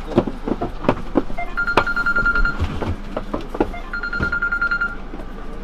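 Phone ringing: two steady, one-second rings about two and a half seconds apart, over scattered clicks and knocks of things being handled.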